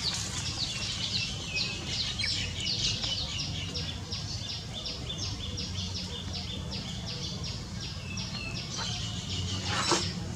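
A bird's rapid chirping: short, high falling notes repeated evenly about four or five times a second, over a steady low hum. A single short sharp sound stands out near the end.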